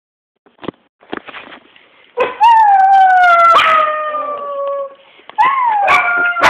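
A small dog howling: one long howl that slides slowly down in pitch, then a shorter second howl starting near the end.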